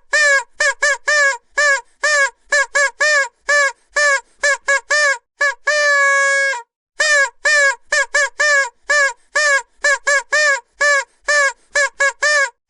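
A vuvuzela blown in a fast, uneven string of short single-note toots, each bending slightly up and back down in pitch, with one longer held note about six seconds in.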